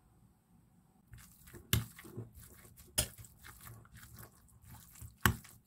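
Thick mayonnaise being stirred into grated stewed beetroot salad in a bowl: soft wet squelching, with a few sharp knocks of the utensil against the bowl. It starts about a second in.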